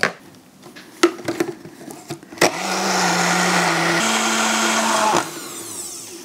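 Oster personal bottle blender blending egg whites, cooked chicken and cheese into a smooth batter. A few plastic clicks come first as the bottle is seated on the base. The motor then runs steadily for about three seconds, its hum stepping up in pitch partway through, and stops.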